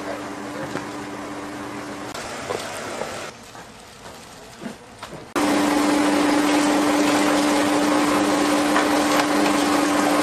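A machine's motor humming steadily with one steady tone. It cuts off suddenly about three seconds in and switches back on, louder, about two seconds later.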